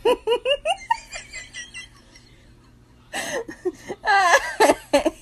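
A young woman laughing: a quick run of short giggles, then after a pause of about a second more of her voice from about three seconds in.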